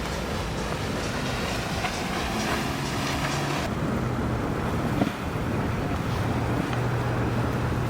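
Boat engines droning steadily, with wind and rushing water noise.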